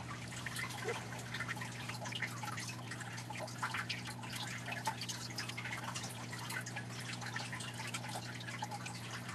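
Background noise: a steady low electrical hum with faint, irregular ticks and crackles over it.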